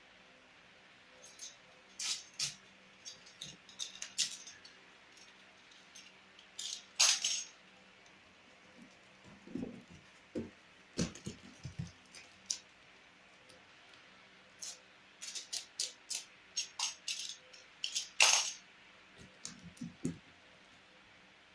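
Power drills and packing materials being handled. Irregular clicks, rattles and light knocks, with a few duller thuds partway through and near the end.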